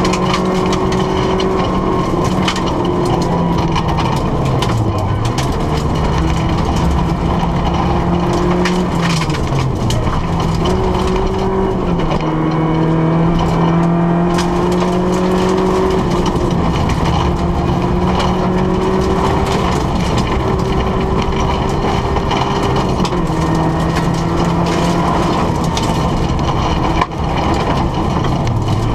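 Rally car engine heard from inside the cabin, driven hard along a gravel stage, its note dropping and climbing back at gear changes about five seconds in, around ten seconds and near the end. Loose gravel cracks and rattles against the car's underside throughout.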